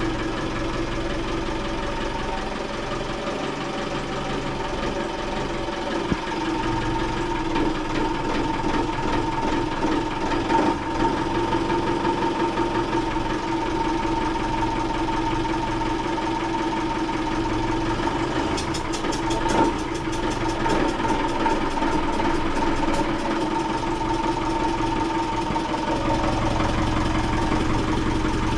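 Ford marine diesel engine running steadily at idle, just restarted after being realigned with the prop shaft: a steady drone, with a few sharp clicks and a short spell of fast ticking partway through.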